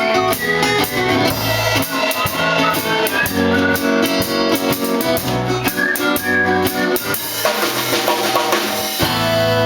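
Live band playing an instrumental passage, a drum kit with kick and snare hits under pitched instruments, settling into a held chord near the end.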